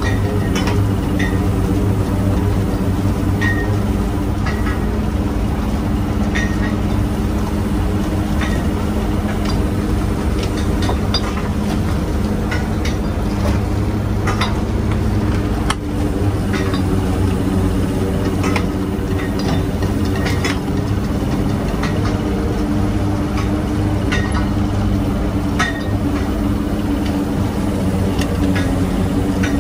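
An engine running steadily at an even speed, with sharp clinks and knocks every second or two.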